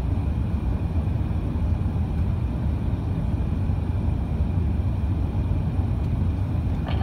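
Steady low rumble inside the cabin of an Airbus A380-861 climbing out just after takeoff: its four Engine Alliance GP7200 engines at climb power and the rush of air past the fuselage.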